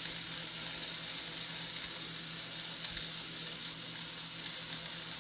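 Sliced food sizzling as it fries in a nonstick skillet on an electric stove: a steady, even hiss.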